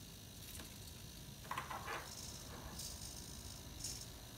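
Small hobby servo motors of a 3D-printed robotic gripper whirring faintly in a few short spurts as the gripper is driven by a potentiometer knob.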